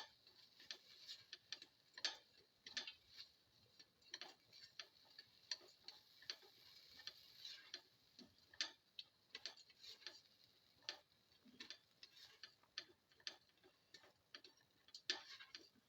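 A spoon stirring potato pieces in a frying pan: quiet, irregular clicks and scrapes of the spoon against the pan, one or two a second, over a faint sizzle.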